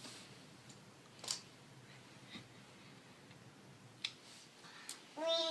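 A few faint, scattered clicks and taps of small plastic toy parts being handled, then a short child's voice sound near the end.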